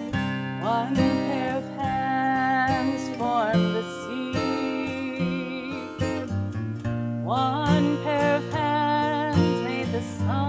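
Recorded country-style gospel song with acoustic guitar accompaniment; a melody line slides up into long, wavering held notes every three to four seconds.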